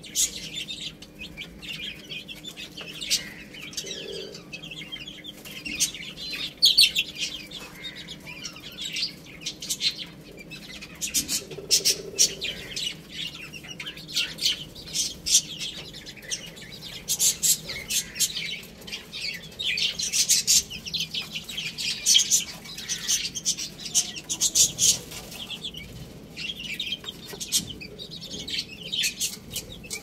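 Baby chicks peeping continuously: many short, high-pitched peeps overlapping, with a faint steady low hum underneath.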